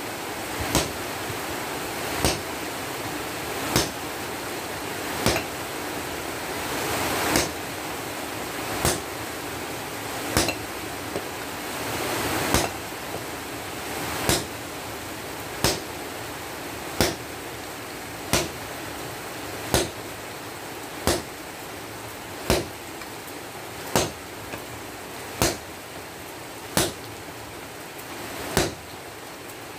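Sledgehammer striking red-hot steel from an excavator breaker chisel on an anvil while it is forged into a blade, one sharp blow about every second and a half, over a steady hiss.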